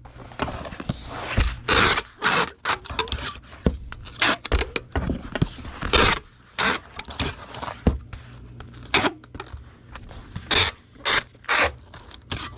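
Corrugated cardboard folding box being folded and rubbed closed around a book: a run of irregular scraping and rubbing strokes.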